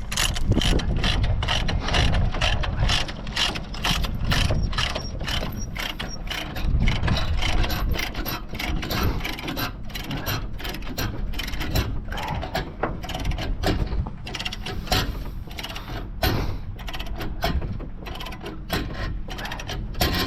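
CAT 279D compact track loader working: a low engine rumble under rapid, uneven clicking and clattering, several clicks a second.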